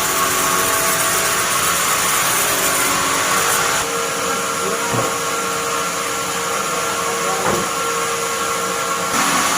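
Sawmill bandsaw machine running: a loud, steady hiss with a hum. A higher steady tone comes in about four seconds in and drops out near the end, with two faint knocks in between.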